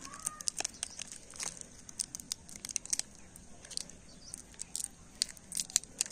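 The wrapper of an M-Seal epoxy putty pack is torn open and crinkled by hand: a run of irregular small crackles and rustles.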